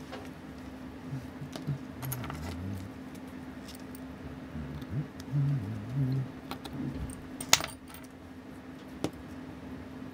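Small metallic clicks and taps of steel tweezers and tiny parts against a Seiko 6138 chronograph movement and its steel movement holder during disassembly. The sharpest click comes about 7.5 seconds in, with another about 9 seconds in, over a steady low hum.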